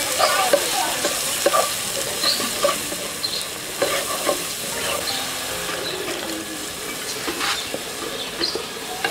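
Fish curry sizzling as it fries in oil in a pan, stirred, with irregular scrapes and taps of the stirring utensil against the pan.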